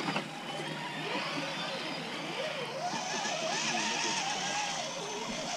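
Small electric motor and drivetrain of an RC crawler truck whining, the pitch rising and falling as the throttle is worked, with a hiss of water thrown up by its spinning tyres growing louder about halfway through.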